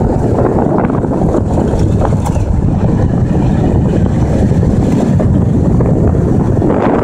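Steady wind rumble on the microphone mixed with the running and road noise of a pickup truck driving on a dirt road.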